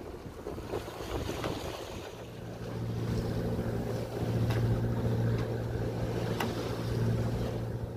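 Wind buffeting the microphone on a sailboat at sea. About two seconds in, a steady low mechanical hum comes in, and there are a few sharp clicks.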